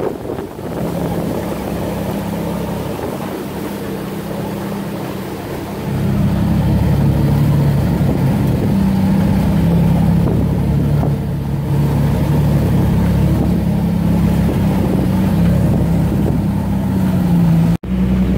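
Engine of an off-road 4x4 droning steadily under way on a wet dirt trail, heard from inside the cab. It gets louder about six seconds in and breaks off for an instant near the end.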